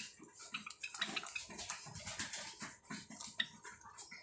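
Java sparrows feeding from a plastic tray of egg soft food: a run of quick, irregular pecking clicks, with a few short chirps.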